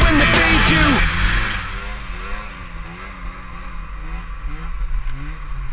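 Background music fading out over the first second and a half, then a snowmobile engine running, its pitch rising and falling over and over as it revs up and down.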